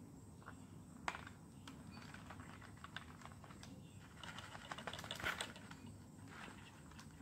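Light handling clicks and rustling from gear being fiddled with near the microphone, with one sharp click about a second in and a quick run of clicks around five seconds in.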